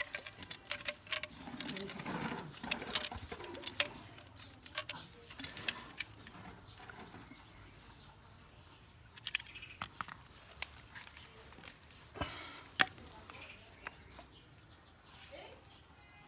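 Small hard parts clicking and clinking as they are handled. A dense run of quick clicks comes first, then it thins to a few separate taps and knocks.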